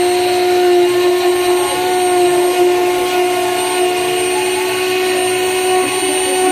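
Small desktop CNC router engraving a wood round: its rotary-tool spindle runs at a steady pitch as the bit cuts the wood.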